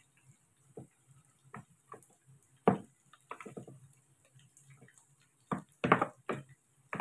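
A utensil stirring chicken pieces through wet batter in a plastic bowl, knocking and scraping against the bowl's sides in irregular clacks, the loudest about three seconds in and a quick run of them near six seconds.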